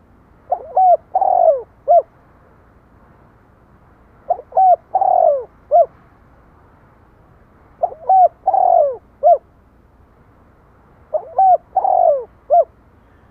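Spotted dove cooing: four repeats of its song phrase, each a few quick coos, a longer falling coo and a short closing note, spaced about three and a half seconds apart.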